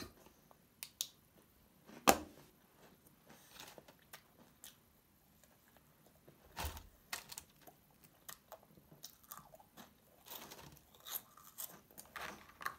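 A person eating: chewing and small crunches, mixed with light handling of a food pouch and a foil wrapper. A sharp click about two seconds in is the loudest sound, with a dull thump near the middle.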